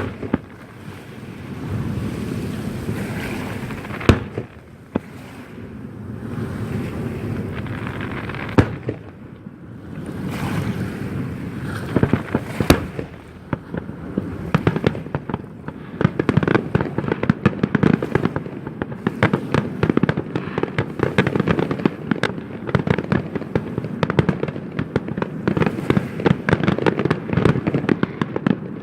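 Fireworks display: a few single loud bangs several seconds apart over a low rumble, then from about halfway a dense barrage of rapid bangs and crackling.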